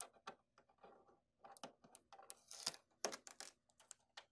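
Orange shipping tape being peeled off the plastic casing of an HP LaserJet Pro M127fn laser printer: a faint run of small clicks and short rasping peels, the loudest a little past halfway.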